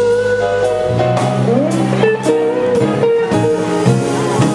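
Live jazz band playing: an electric guitar lead line with bent notes over bass, drum kit and keyboard, the drums keeping a steady beat.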